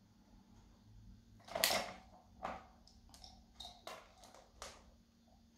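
Plastic cylinders of a spinning dog puzzle toy knocking and clattering as a Kerry Blue Terrier noses at them: one sharp clatter about one and a half seconds in, then a few lighter knocks.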